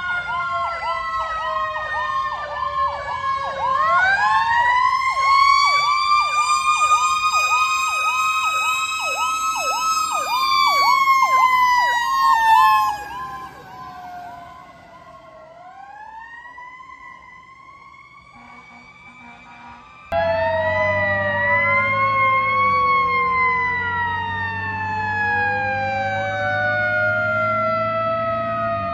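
Emergency vehicle sirens: a fast electronic yelp alongside a slower wail that rises and then falls, fading to a distant wail. After a sudden cut, several sirens wail over one another, gliding down and back up, over the low steady rumble of a truck engine.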